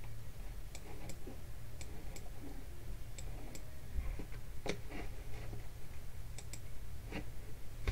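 Computer mouse clicking: about a dozen short, sharp clicks, often in close pairs, over a steady low hum.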